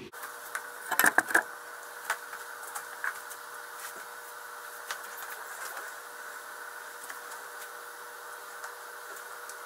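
Handling of a new aluminum radiator and its transmission cooler hoses: a quick run of knocks and clicks about a second in, then a few lighter scattered clicks, over a steady hum.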